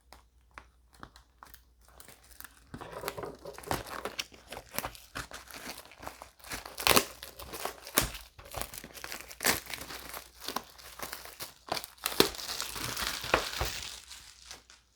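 Plastic shrink wrap crinkling and tearing as it is peeled off a trading card booster box, in irregular crackles with a longer stretch of ripping near the end.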